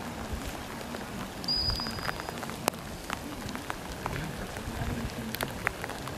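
Steady rain with scattered sharp raindrop ticks. A brief high steady tone sounds about one and a half seconds in.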